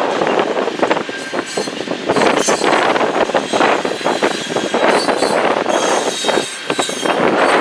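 Freight train of covered grain hopper cars rolling past: a steady rumble and rattle of steel wheels on the rails, with many short clanks and knocks from the wheels and couplings.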